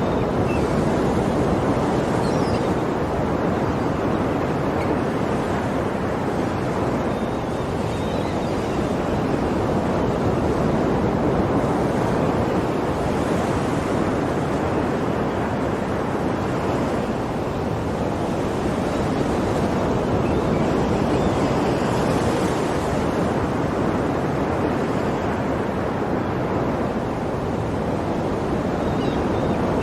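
Ocean surf: waves washing in as a steady rush that swells and eases slowly every several seconds.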